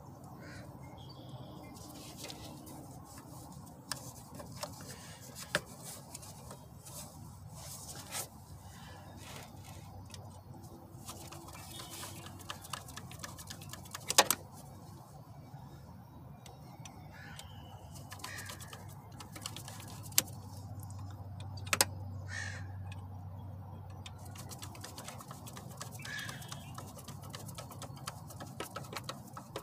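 Crows cawing now and then, with scattered sharp clicks and knocks, the loudest about 14 seconds in.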